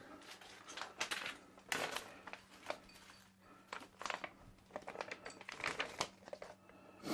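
Paper rustling and crinkling in short irregular crackles as a brochure is handled and leafed through, over a faint steady low hum.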